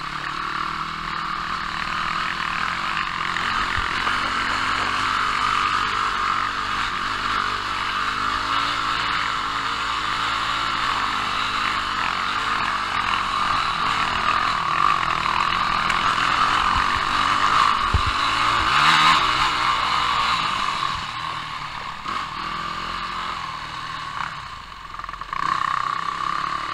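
250 cc enduro dirt bike engine running under throttle on a rough, rocky dirt trail, with clatter from the track. It gets louder with a sharp jolt about two-thirds of the way through, and eases off briefly near the end.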